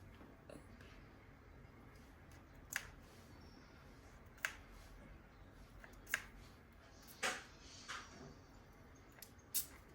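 Pump spray bottle of liquid mousse spritz giving six short squirts, one to two seconds apart, as it is sprayed along a wig's hairline.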